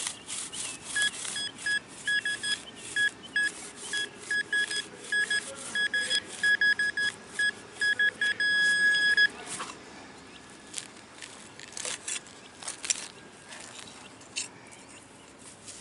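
Metal-detecting pinpointer beeping in short pulses at one steady pitch, the pulses bunching and ending in a held tone about nine seconds in as it closes on the buried target. Sharp clicks and scrapes of digging in soil come and go throughout.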